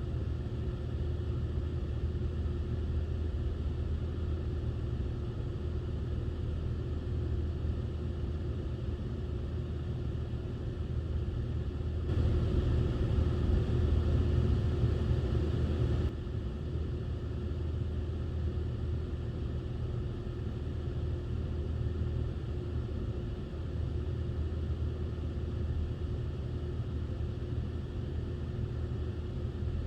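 A vehicle's engine runs with a steady low rumble and hum. It gets louder for about four seconds partway through, starting and stopping abruptly.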